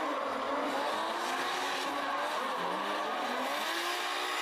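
Two drift cars sliding in tandem, their engines held at high revs that rise and fall, with tyres screeching as they spin and smoke.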